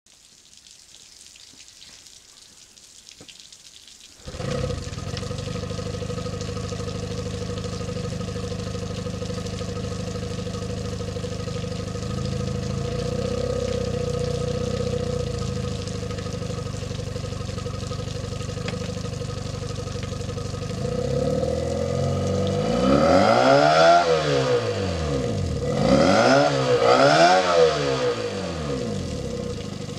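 Evinrude E-TEC 30 hp two-stroke outboard motor, run on a stand with a water hose on its lower unit, starts suddenly about four seconds in and settles into a steady idle. Near the end it is revved up and back down three times with the tiller throttle.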